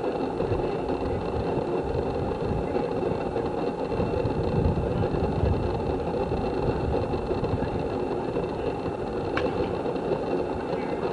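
A steady low rumble, with one sharp pop about nine seconds in: a pitched baseball smacking into the catcher's mitt.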